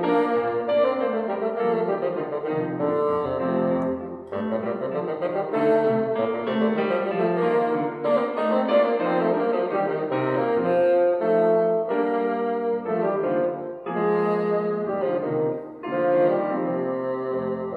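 Bassoon and grand piano playing a classical duo, the bassoon's melody running over the piano accompaniment in quick, changing notes.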